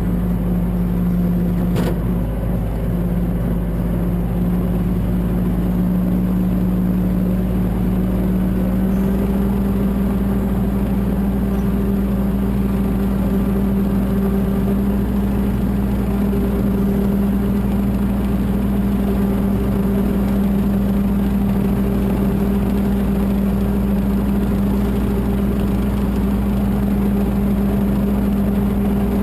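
Mahindra 1526 tractor's three-cylinder diesel engine running steadily, its tone shifting slightly about nine seconds in.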